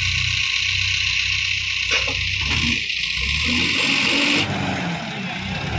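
Case 770EX backhoe loader's diesel engine running under work, its note shifting about two to three seconds in. A loud, steady high hiss lies over it and cuts off suddenly about four and a half seconds in.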